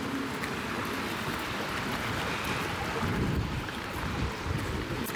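Wind rushing over the microphone: a steady noise, with heavier low buffeting from about three seconds in.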